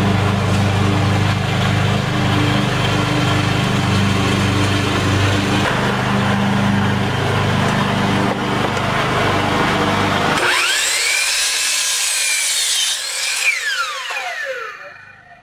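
Hitachi miter saw running and cutting through a wood block, a steady sound over a low hum. About two-thirds through it changes to a high motor whine that rises, holds, then falls away as the blade spins down.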